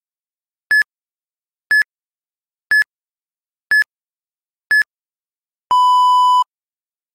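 Interval-training timer beeps: five short high electronic beeps, one a second, then one longer, lower beep. A countdown marking the switch between a one-minute run and a one-minute recovery.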